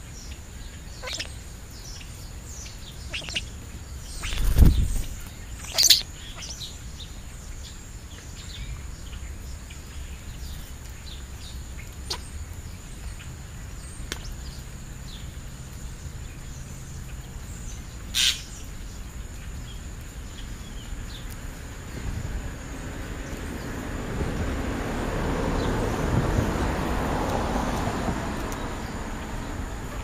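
European starlings feeding and giving short, scattered chirps, with a louder sharp call near 6 s and another near 18 s, and a thump a little over four seconds in. A broad rushing noise swells and fades in the last third.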